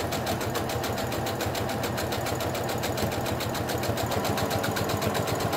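Brother CS5055PRW computerized sewing machine running at a steady speed, its needle stitching in a fast, even rhythm as it sews a straight seam through two layers of cotton fabric.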